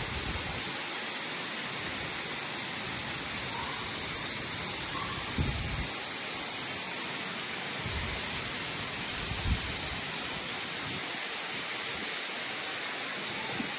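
Steady rushing of a waterfall, an even hiss with no change. A few soft low thumps come in the middle.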